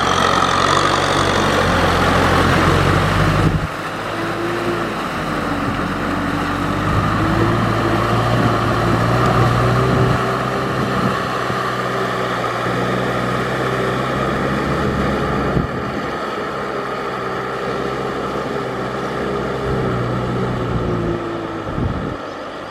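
Tractor engine running steadily under load while ploughing deep mud, its pitch wavering slightly, with an abrupt drop in level about three and a half seconds in.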